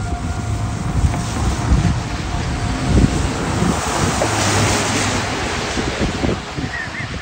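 Strong wind buffeting a phone's microphone, with uneven low rumbles. A faint steady outdoor warning siren tone carries under it in the first couple of seconds.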